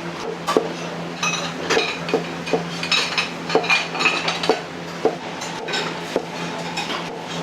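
Metal ladle striking and scraping a wok in quick repeated clinks, about two a second, while stir-frying, over a steady low hum.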